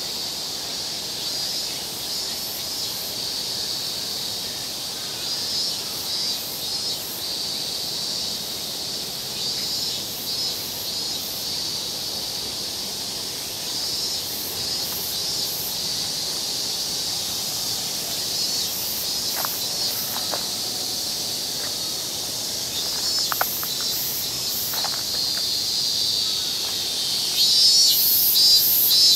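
Steady, high-pitched chorus of insects, pulsing in places and growing louder near the end.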